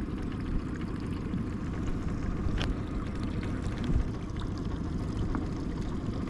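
Boat's outboard motor running slowly in reverse, with water splashing against the hull. A low thump about four seconds in.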